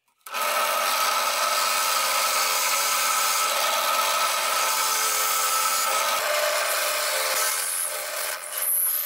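Drill press driving a hole saw into the end of a wooden rod, cutting a half-circle fish-mouth notch: a steady cutting noise over a motor whine, starting about a third of a second in. It eases a little in the second half, with a brief high-pitched note near the end.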